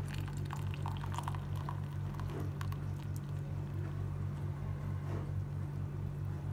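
Hot herbal tea poured from a cezve through a mesh tea strainer into a mug, splashing and trickling, busiest in the first three seconds. A steady low hum runs underneath.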